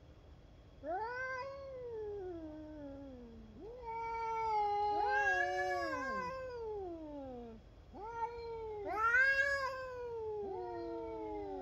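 Two cats caterwauling at each other: a series of long, drawn-out yowls starting about a second in, each swelling up and then sliding slowly down in pitch, the two voices sometimes overlapping. These are the threat yowls of a standoff between cats.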